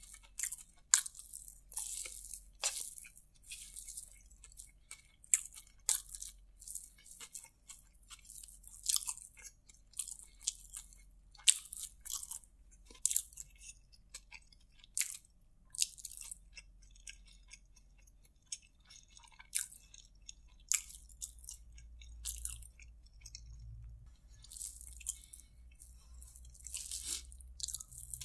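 Close-miked chewing of chopped paratha kottu eaten by hand: irregular, wet, crackly mouth sounds in uneven clusters, with short pauses between mouthfuls.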